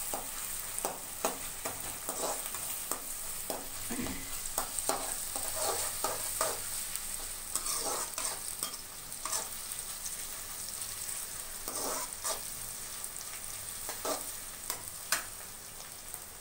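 Sliced onions sizzling as they fry in hot oil in a metal kadai, with a perforated steel ladle scraping and tapping against the pan at irregular moments as they are stirred.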